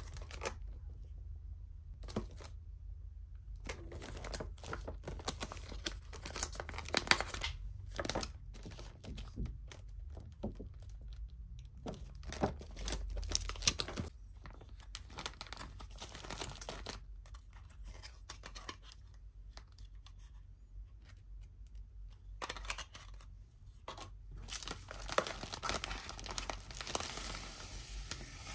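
Clear plastic film wrap being torn open and pulled off a sushi box, crinkling and crackling in irregular bursts, with a quieter spell before a last burst of crinkling near the end.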